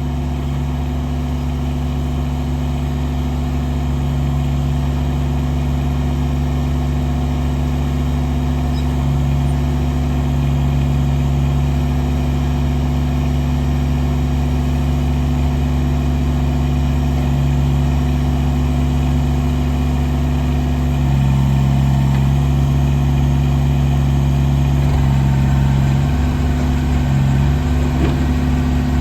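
Kubota BX24 tractor's three-cylinder diesel engine running steadily, with small shifts in its note about two-thirds of the way through and again near the end.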